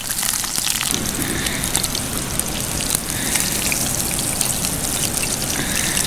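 Two whole trout sizzling steadily in hot olive oil in a frying pan over a campfire, a dense crackling hiss.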